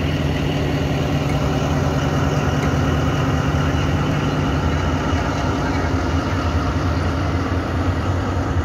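Pakistan Railways diesel locomotive's engine idling steadily at a standstill, a deep, even hum that holds its pitch throughout.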